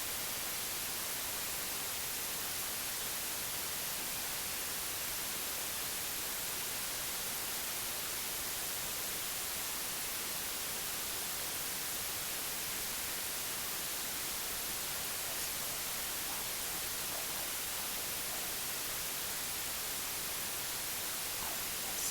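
Steady white noise: an even, unbroken hiss that sits mostly in the highs and does not change.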